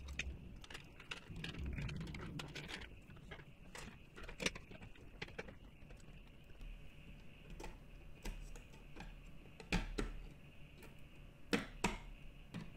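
Scattered light clicks and knocks of circuit boards being handled and pressed into their connectors by hand, with a few sharper clicks near the end.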